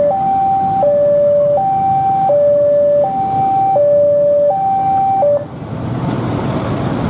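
Railway level-crossing warning alarm sounding an electronic two-tone high-low chime, each tone held under a second. It cuts off suddenly about five seconds in, the sign that the crossing is clearing after the train has passed, and a rising rushing noise follows.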